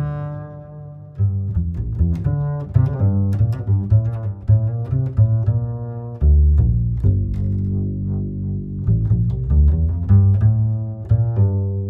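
Background music with a deep bass line and quick-changing pitched notes.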